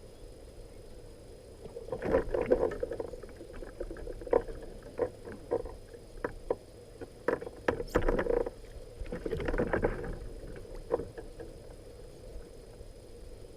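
Irregular knocks and clunks with short bursts of splashing or scraping aboard a small fishing boat on the water, over a faint steady hum. They start about two seconds in and die away near the end.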